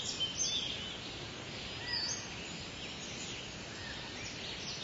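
Birds chirping, with short high calls and little pitch glides scattered every second or so, over a steady outdoor background hiss.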